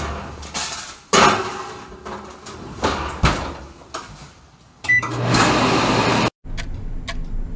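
A baking pan slides into an oven and the oven door shuts with a bang about a second in. Some seconds later a button beeps and the over-the-range microwave's vent fan starts with a steady whoosh. It cuts off abruptly and is followed by a clock ticking about twice a second.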